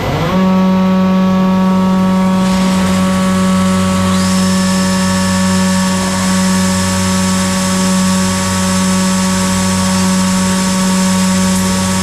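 Weinig molder planer running at speed with a steady, many-toned machine whine that settles just after the start. A higher-pitched whine and extra noise join about four seconds in.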